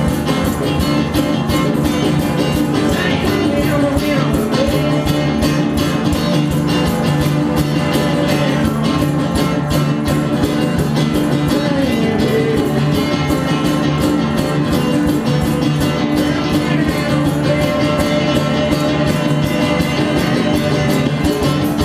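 Live rock band playing: electric guitar over a drum kit and congas, loud and steady.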